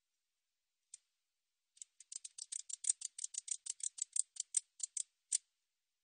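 베짱이붙이 katydid stridulating: a single click about a second in, then a run of about twenty short, sharp, high-pitched ticks at roughly six a second that stops a little before the end.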